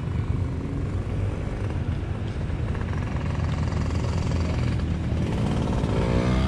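Motorcycle engines running in the background, a steady low rumble, with an engine note rising in pitch near the end.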